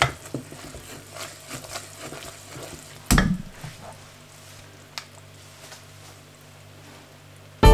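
Hot sugar-wax syrup bubbling and crackling softly in a stainless steel pot, kept on low heat as it nears golden brown. A wooden spatula knocks against the pot at the start, with a louder knock about three seconds in, over a low steady hum.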